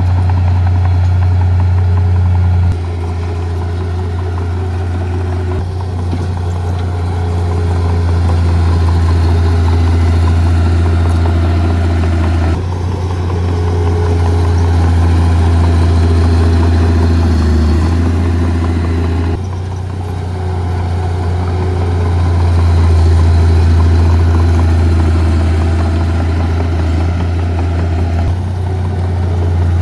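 Heavy diesel earth-moving machinery running steadily with a deep engine hum. The sound changes abruptly three or four times.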